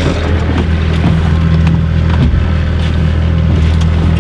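Twin outboard motors running at trolling speed: a steady low drone, with a few faint knocks over it.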